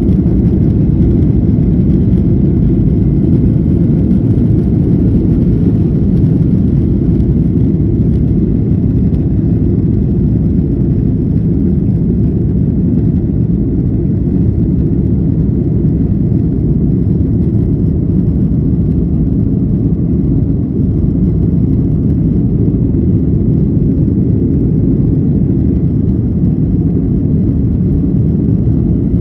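Airliner jet engines during takeoff: a steady, loud, low rumble.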